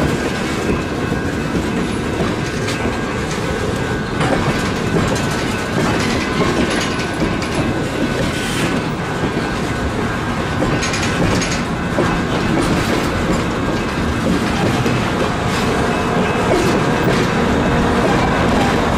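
A train's cars rolling steadily past at close range, wheels clacking over the rail joints.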